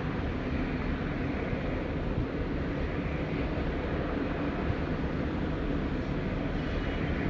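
Two aircraft jet engines running at once on factory test stands, heard from a distance as a steady, even rumble with a faint low hum.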